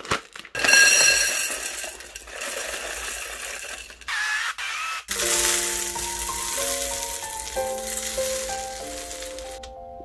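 Crinkly plastic snack bag of Jolly Pong puffed wheat handled and opened, then the puffed wheat poured into a waffle iron with a hissing rattle that stops shortly before the end. Piano music comes in about halfway.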